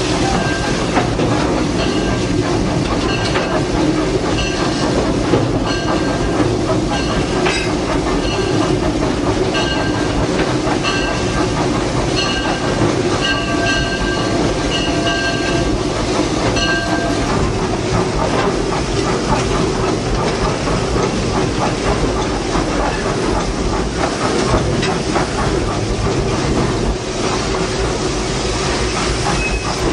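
Vulcan steam locomotive running along the track, heard from inside its cab: a steady loud rumble and rattle of the running engine and wheels. Short high tones come and go through the first half.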